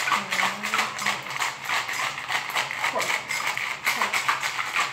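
Ice rattling in a stainless steel cocktail shaker shaken hard, a rapid even clatter of ice hitting metal.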